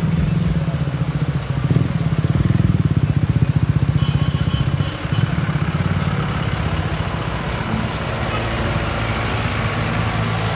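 Motor vehicle engine running close by, a low pulsing hum for the first half. From about four seconds in, a steady hiss rises as a vehicle moves along the waterlogged road.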